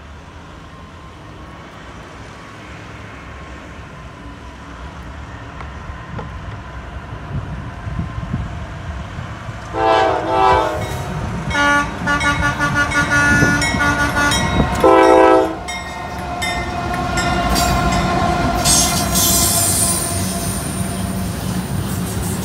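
A Norfolk Southern intermodal freight train rumbles closer. About ten seconds in, the locomotive's air horn and a semi truck's air horn trade several loud blasts for around six seconds. Then the double-stack container cars roll past with wheel clatter and a high wheel squeal.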